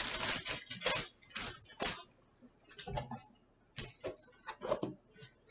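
Wax paper crinkling as it is peeled off and swept aside, in a dense run of crackles over the first two seconds. Scattered soft rustles and taps follow as the paper book's cover and pages are handled.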